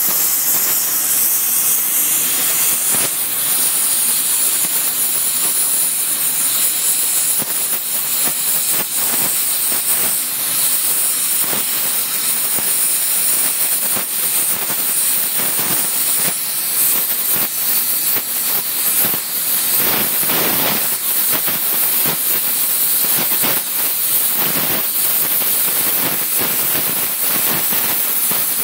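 Gas brazing torch flame hissing steadily as it heats a steel sugar-cane shredder hammer to braze TufCote hardfacing onto its edges, with many short crackles throughout that grow more frequent in the second half.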